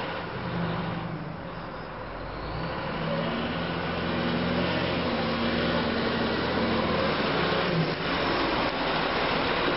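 2015 Caterpillar 966M wheel loader's diesel engine running steadily as the machine drives, growing louder about three seconds in and staying loud.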